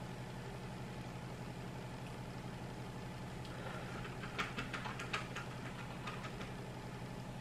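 Steady low hum of a running appliance. About four to five seconds in come a few light clicks and crinkles as a plastic pastry bag of yogurt is handled and squeezed into small silicone molds.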